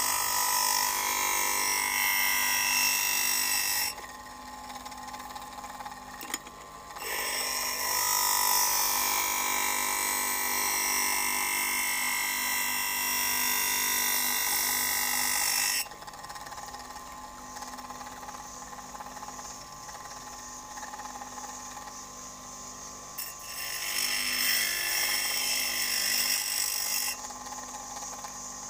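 Tungsten-carbide-tipped planer blade ground against the face of a motor-driven grinding wheel: a loud, high grinding noise in three long passes, the first ending about four seconds in, with the motor's steadier, quieter running sound between passes.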